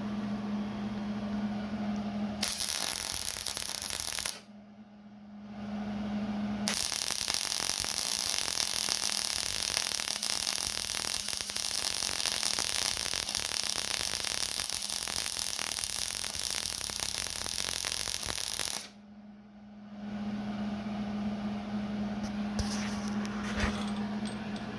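MIG welder arc crackling as a bead is laid, in two runs: a short one of about two seconds, then a steady one of about twelve seconds. A steady electrical hum from the welder fills the pauses between them.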